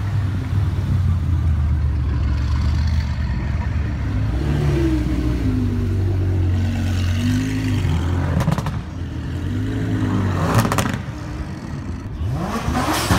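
The engine of a Batmobile Tumbler replica runs with a deep rumble and is revved in several blips, its pitch rising and falling. Near the end it climbs in pitch as the car pulls away.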